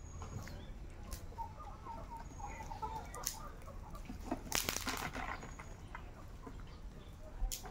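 Chickens clucking in short low notes in the first half, with a brief burst of wing flapping about halfway through and a few scattered clicks.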